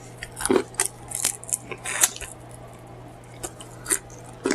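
Close-miked chewing with wet lip-smacking and mouth clicks, a quick run of them in the first two seconds and a few more near the end.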